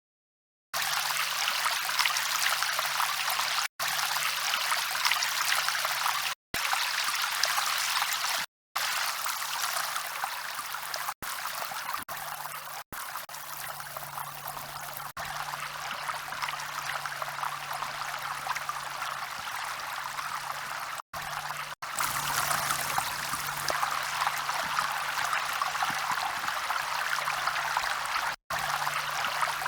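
River water flowing as a steady rushing hiss, heard in a string of clips joined by abrupt cuts to silence, with a faint low hum underneath.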